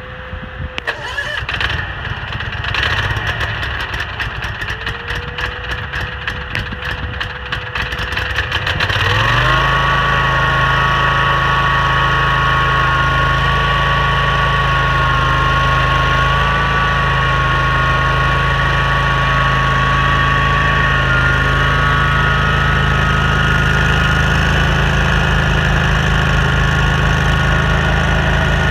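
Toro STX-26 stump grinder's engine being cranked over by its electric starter, catching about nine seconds in and then running steadily.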